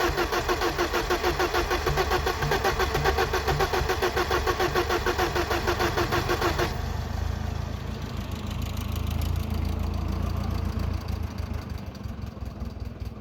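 A BMW E34's starter motor cranking the engine with an even, rhythmic pulsing and whine; the engine does not catch. The cranking stops abruptly about seven seconds in, leaving a lower, steady rumble.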